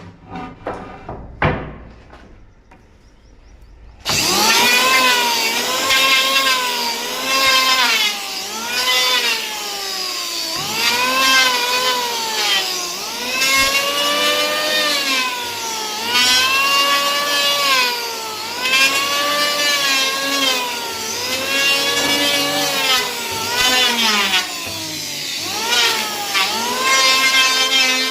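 Hand saw cutting wood in steady back-and-forth strokes. Each stroke is a rasp whose pitch rises and falls, coming roughly every second and a half. The sawing starts about four seconds in, after a few faint clicks.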